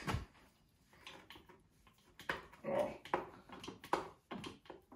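Hand lever grease gun being pumped into a tractor's front wheel hub: an uneven series of short strokes about half a second apart, starting about two seconds in, one with a brief squeaky tone.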